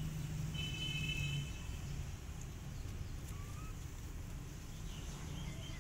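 Outdoor ambience: a steady low hum, with a brief high chirp about a second in and a few faint small calls later.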